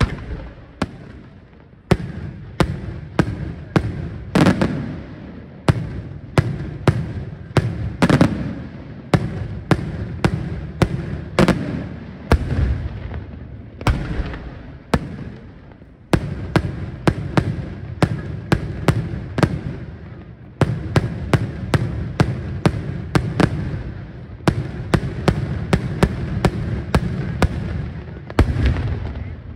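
Daytime fireworks shells by Senatore Fireworks bursting in the sky: a rapid, continuous run of sharp bangs, about two a second, over a low echoing rumble.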